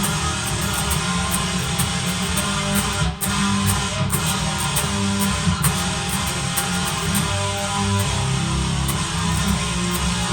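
Jackson Kelly KE3 electric guitar with clone Invader pickups playing through heavy distortion, along with a backing song that has a regular cymbal-like tick. The sound breaks off briefly about three seconds in.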